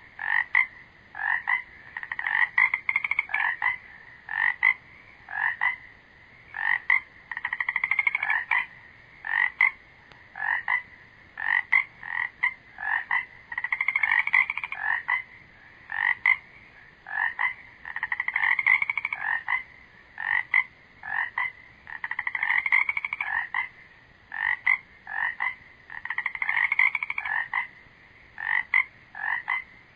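Frogs calling over and over: short pulsed croaks and longer trills of about a second, one after another every second or so.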